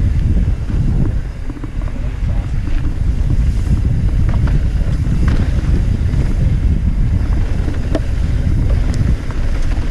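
Wind buffeting the microphone as a mountain bike rolls fast down a dusty dirt singletrack: a steady low rumble, with scattered sharp clicks and rattles as the bike goes over rough ground.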